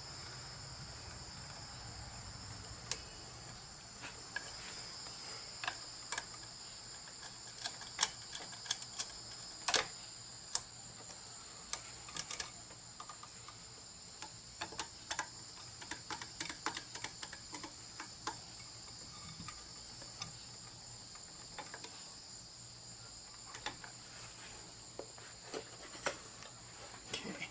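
Irregular light clicks and taps of wires and a screwdriver being worked into the terminals of a generator outlet receptacle, over a steady high chorus of insects.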